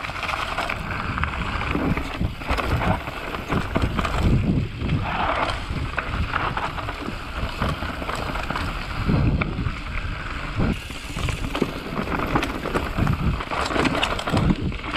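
Mountain bike riding down a dirt trail: a steady rush of tyre and wind noise with frequent irregular knocks and rattles as the bike goes over bumps.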